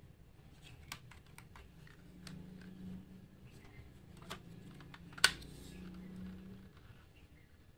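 Light clicks and taps of fingers handling a diecast model Toyota Land Cruiser, with one sharp click about five seconds in as its door is pulled open.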